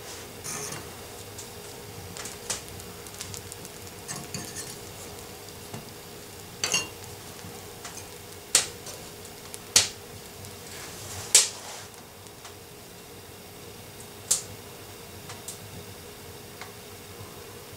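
Metal fork clinking and scraping against a cast-iron stovetop as slices of bread are turned over to toast. It comes as a scatter of sharp clinks, loudest in the middle stretch, with a few lighter taps near the end.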